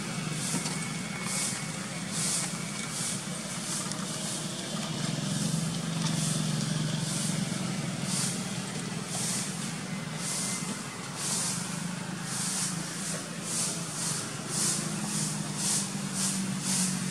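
High-pitched insect buzzing in even pulses, about one a second and quickening toward the end, over a steady low hum.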